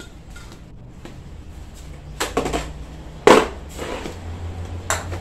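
A few sharp knocks and clatters from aerosol spray cans being picked up and handled, the loudest a little over three seconds in.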